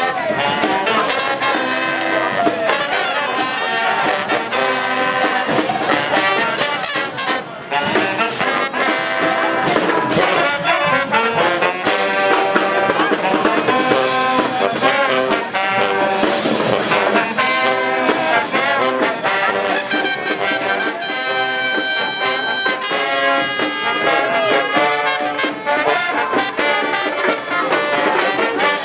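Street brass band playing live: trumpets and trombones sounding together in a continuous, steady tune.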